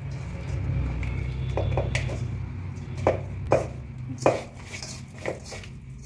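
Hands mixing a masala marinade into small fish in a steel bowl: irregular light clinks and taps against the metal bowl as the fish are turned and rubbed. A steady low hum runs underneath.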